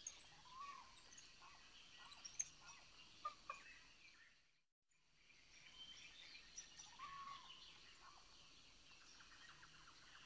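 Faint rainforest ambience with scattered bird calls: short high chirps and a few brief arching whistles. It cuts out to silence for a moment about four and a half seconds in, then resumes.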